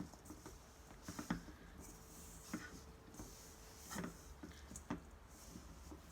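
Hands working roti dough in a bowl, faint: soft, irregular knocks and short rustles against a low hum.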